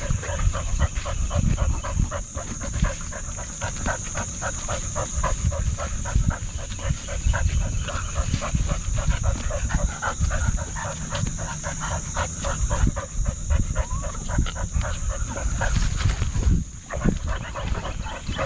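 A dog panting quickly and evenly, heard up close from a camera strapped to its back, over a low rumble of movement against the microphone.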